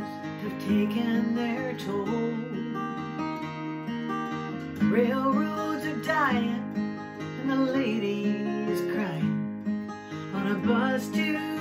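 Acoustic guitar strummed at a slow, steady pace as a song accompaniment. A woman's singing voice comes in on a few phrases.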